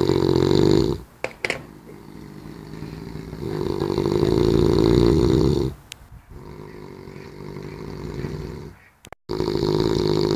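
A man snoring heavily. Big snoring in-breaths, each about two seconds long, come about every four to five seconds, three in all, with quieter breaths between them.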